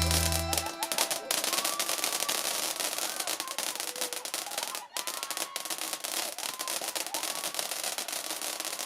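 Fireworks crackling and popping in a dense, steady stream of sharp cracks, with faint voices in the background. Rock music cuts off just under a second in.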